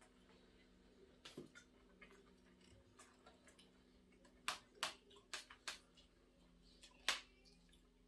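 Quiet eating at a table: a handful of short, sharp clicks of cutlery and food against plates over a faint steady hum, with a quick run of four clicks about halfway through and a louder one near the end.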